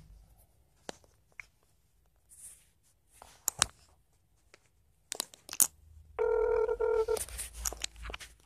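Smartphone being handled, with scattered clicks and rustles, then about six seconds in a single ringing tone about a second long from the phone's speaker as the call goes through.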